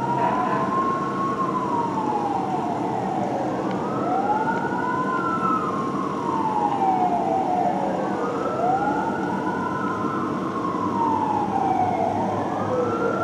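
Fire truck sirens on a slow wail: each cycle rises quickly and slides down over about four seconds, repeating about three times. Two sirens at slightly different pitches overlap, above a steady rumble of traffic.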